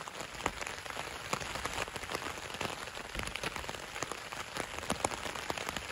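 Rain falling on tent fabric, heard from inside the tent: a steady even wash with many small, irregular drop ticks.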